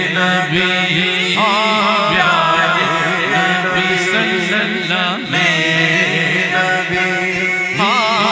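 Male voices singing a naat, an Urdu devotional song, with the lead voice making wavering, ornamented runs over a steady low drone.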